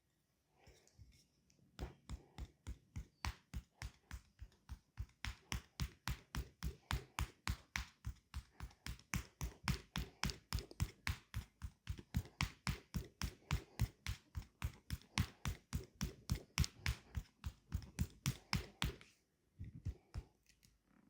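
Hands striking a leg in a fast percussive massage, about four even slaps a second, starting about two seconds in and stopping suddenly near the end.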